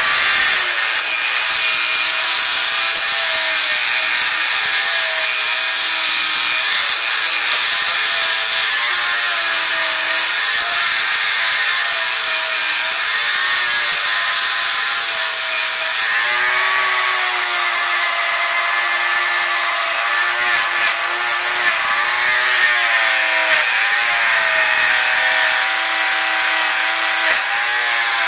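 Dremel rotary tool spinning a brass wire brush against the combustion chambers of a Honda F23A1 cylinder head, scrubbing off carbon deposits. A steady high motor whine whose pitch sags and recovers each time the brush is pressed into the metal.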